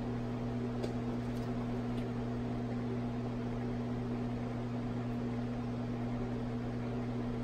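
Steady electrical hum with an even hiss from stirring hot plates running, with a few faint light clicks in the first two seconds.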